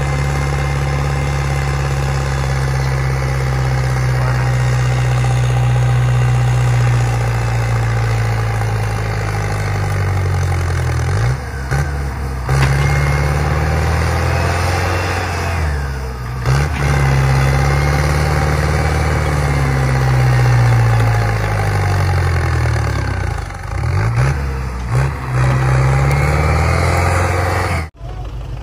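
Belarus 562 tractor's diesel engine labouring under a heavy pull. It runs steadily at first, then revs up and drops back several times as it strains to drag a trailer of about 8–9 tonnes of cassava through soft ground that the wheels are sinking into.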